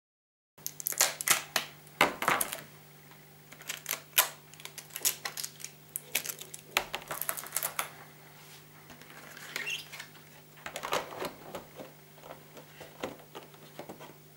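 Hard plastic Beyblade stadium parts and their packaging being handled: irregular clicks, knocks and rustling. The sound begins abruptly about half a second in.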